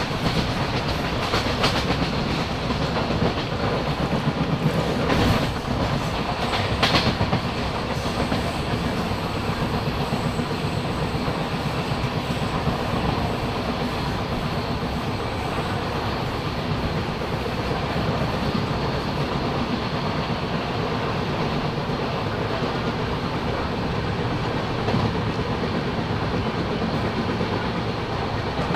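Humsafar Express passenger coaches running at speed, heard close up from an open coach door: a steady rumble of wheels on rail with clickety-clack. A few sharper clatters come in the first several seconds.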